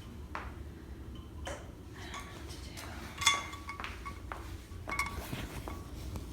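Scattered light clicks and handling sounds over a low room hum, with a ringing clink of metal or glass about three seconds in and a fainter one near five seconds.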